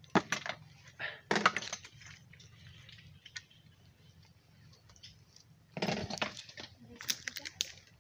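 Bursts of crackling and clicking as someone walks through dry grass and brush, in short clusters just after the start, about a second and a half in, and again near the end, with a quiet stretch between.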